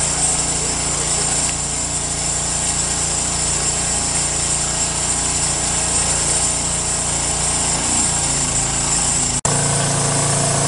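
A motor running steadily with a constant hum. About nine seconds in, the sound cuts out for an instant and then carries on slightly changed.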